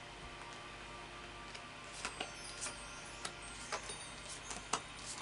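Oracle cards being picked up and handled on a cloth-covered table: light, irregular clicks and taps of card against card, starting about two seconds in.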